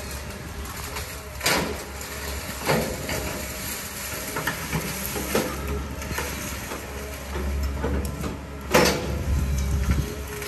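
A heavy earth-moving machine at work, its engine running steadily under four sharp clanks, the loudest near the end.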